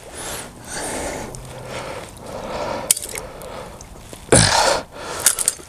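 Water sloshing and handling noise as a staked 330 conibear body-grip trap is pulled up out of shallow swamp water, with a sharp click about three seconds in and a short loud burst about four and a half seconds in.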